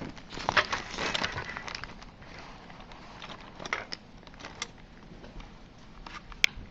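Handling noise from a plastic model kit box and its contents being turned over: scattered clicks and rustling, busiest in the first second and a half, with one sharp click near the end.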